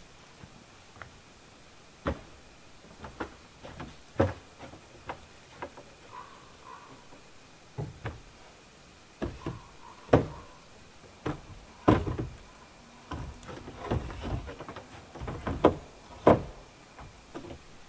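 Irregular knocks and thuds of wood being worked or struck, about one a second, some louder than others.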